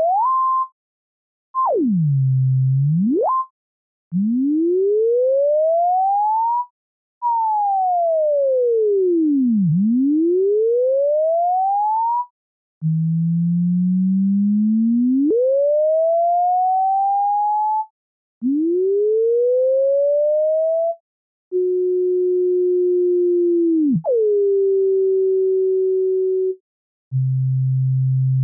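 A pure sine tone whose pitch traces the graphs of math functions: a series of separate glides, each a few seconds long, with short silences between them. In turn it rises steadily, falls and rises again in a V, climbs slowly and then jumps sharply, and holds nearly level with a sudden brief swoop a little past the middle. It ends on a low steady tone.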